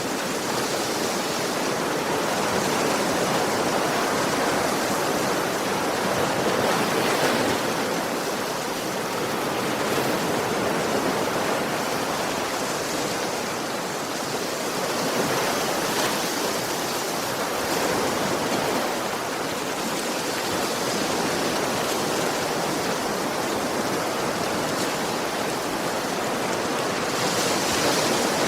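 Sea waves breaking gently on a shore: a steady wash of surf that swells and eases every eight to ten seconds.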